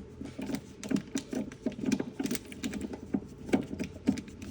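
Irregular small clicks and ticks, several a second, of an Allen driver turning a cooler door latch's screw as it is backed out to free the nut.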